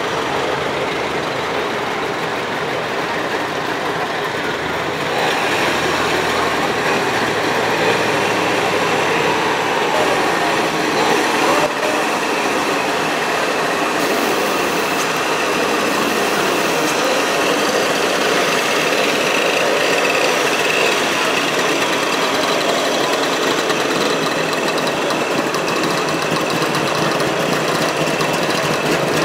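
Vintage vehicles driving slowly past one after another, engines running: a Trabant's two-stroke engine, small motorcycles and a scooter, then an old flatbed lorry.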